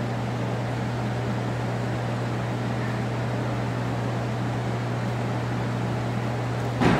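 Steady ventilation noise of an indoor pool hall with a constant low hum. Near the end, a sudden loud bang as the diver comes down on the end of the springboard.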